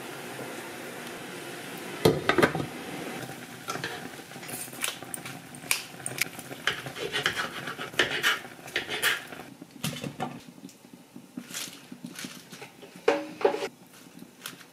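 Kitchen clatter of utensils and dishes. There is a loud knock about two seconds in, then a run of sharp taps and scrapes as boiled chicken breast is pulled apart with a knife on a wooden cutting board, and a short ringing clink of a ceramic dish near the end.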